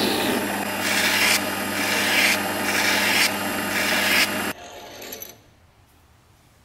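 Metal lathe running while a file and then sandpaper are pressed against the spinning workpiece, scraping in several strokes over the lathe's steady hum. The sound cuts off abruptly about four and a half seconds in.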